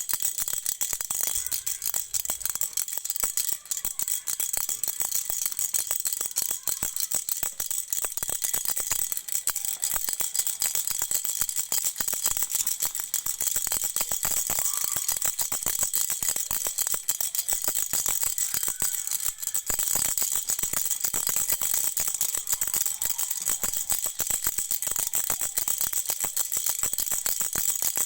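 Toy rattle shaken continuously, a dense, unbroken stream of small high clicks with a thin ringing.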